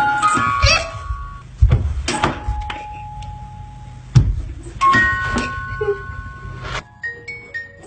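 Battery-operated Christmas toys playing a chiming electronic tune, with a steady low motor hum beneath. A few sharp thuds come through, the loudest about four seconds in, and the hum cuts off about seven seconds in, leaving only chime notes.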